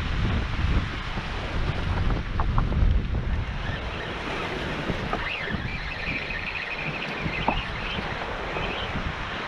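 Strong gusty wind buffeting the microphone, with heavy low rumbling gusts in the first three seconds that ease to a steadier rush, and waves breaking on the shore beneath it.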